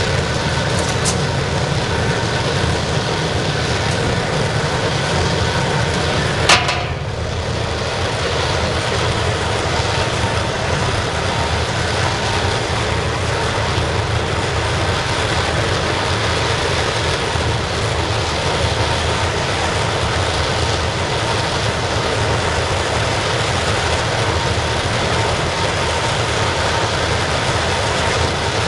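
Waste-oil burner firing a scrapping furnace, running with a steady, even rush of flame and blown air. A single sharp knock about six and a half seconds in.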